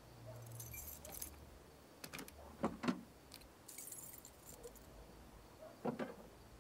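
Keys jangling at a car's trunk lock, with two sharp clunks a little under three seconds in and another near the end as the lock and lid are worked.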